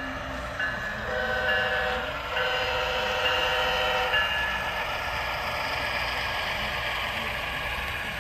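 Sound-equipped HO scale model of a GE ES44AC diesel locomotive blowing its multi-note horn: a couple of short toots, then two long blasts that end about four seconds in. The steady running sound of the model train passing follows.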